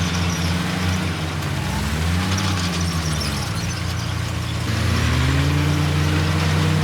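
Heavy diesel engine of earthmoving machinery running under load, its pitch dipping and recovering, then rising and getting louder about five seconds in as it revs up.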